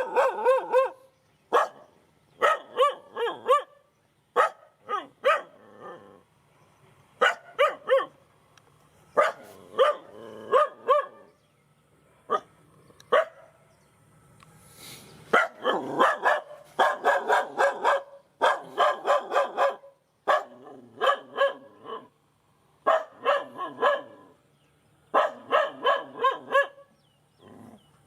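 A dog barking in repeated bouts of several quick barks, each bout separated by a short pause.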